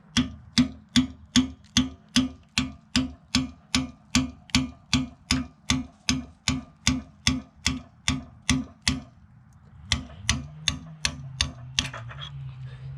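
Hammer striking a punch in steady, evenly spaced blows, about two and a half a second, driving the old rubber retainer out of an H&L backhoe bucket tooth. The blows stop briefly about nine seconds in, then a few more follow, with a low steady hum underneath near the end.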